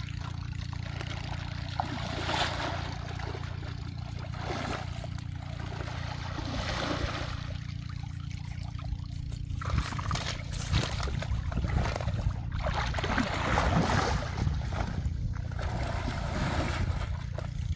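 Water splashing and sloshing as people wade and work a net in a shallow muddy pond, coming in irregular swells several times, over a steady low rumble.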